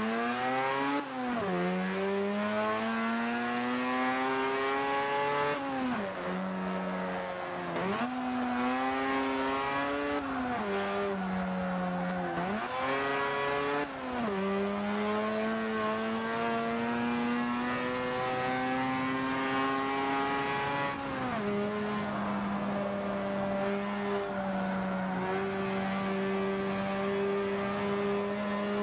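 Car engine heard from outside the moving car, its pitch climbing and then dropping sharply several times as it accelerates and shifts gear, then running at a nearly steady pitch while cruising for the last several seconds.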